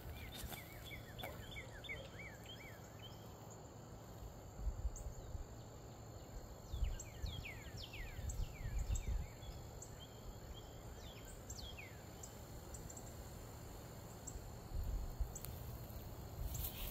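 Songbirds singing in repeated short down-slurred whistled notes, a quick run of them near the start and longer slurs in the middle, over a faint steady high insect drone. A few low bumps come through now and then.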